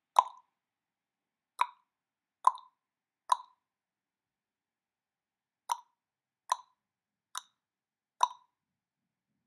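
A series of short plops, eight in all at uneven intervals with a pause of about two seconds in the middle, and dead silence between them.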